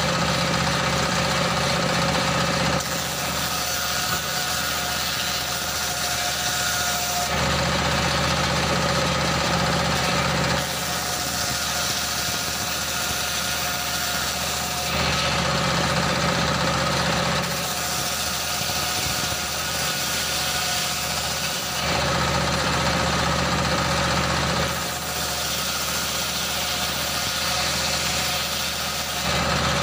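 Table-mounted circular saw driven by a single-cylinder stationary diesel engine, ripping a wooden plank. The engine's steady beat under the blade alternates every few seconds with the louder hissing rasp of the blade cutting through wood, about four cuts in all.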